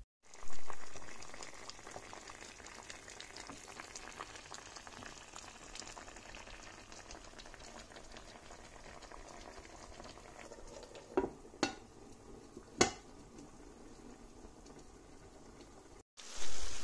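Chicken and potatoes cooking in a covered roasting pan: a steady bubbling and sizzling crackle under the lid, louder for the first second or so. Three sharp clicks come a little past the middle.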